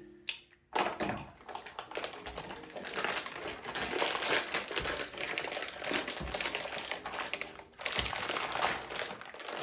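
Plastic packaging crinkling and crackling as a spool of PLA 3D-printer filament is unwrapped: a dense run of small crackles and taps, with a brief pause near the end.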